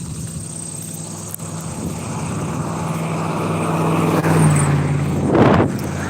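A motor vehicle approaching and passing: its engine hum grows steadily louder, drops slightly in pitch as it goes by, with a short loud rush of noise about five and a half seconds in.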